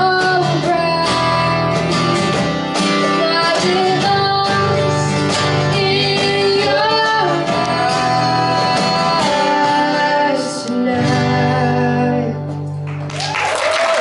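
Live acoustic pop performance: a woman and a man singing over two strummed acoustic guitars, with long held vocal notes.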